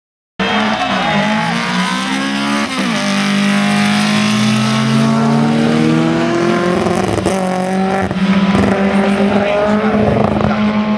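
Drag-racing car accelerating hard down the strip, its engine pitch climbing and dropping back at each gear change. The sound cuts in abruptly just under half a second in.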